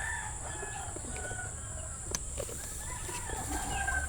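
Chickens calling, with drawn-out clucking calls at the start and again in the second half.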